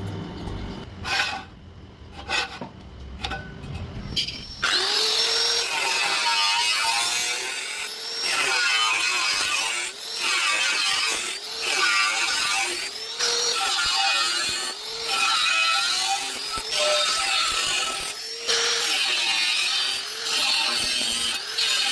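A few sharp clicks, then a little over four seconds in a power tool starts working metal. Its loud grinding noise has a motor pitch that sags and recovers every second or two as the tool is pressed into the work and eased off.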